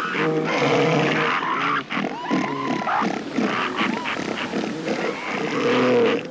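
A crowd of northern elephant seals calling at once, many overlapping cries whose pitch rises and falls.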